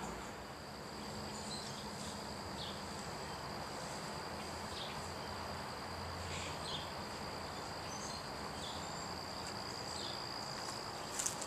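Insects trilling in a steady, unbroken high-pitched drone over a hiss of outdoor background noise, with short chirps now and then and a few sharp clicks near the end.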